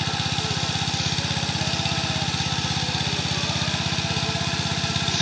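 Small engine-driven water pump running steadily with an even, rapid beat as it pumps water out of a pond.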